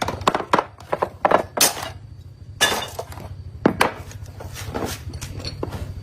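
Irregular sharp metallic knocks and clinks, about a dozen, some ringing briefly, as metal tools and parts are struck or handled, over a steady low hum.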